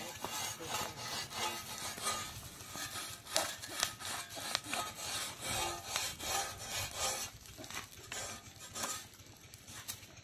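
A metal hoe blade scraping the charred hide of a pig being singed in straw, in repeated rasping strokes, a couple a second, scraping off the burnt bristles; the strokes ease off near the end.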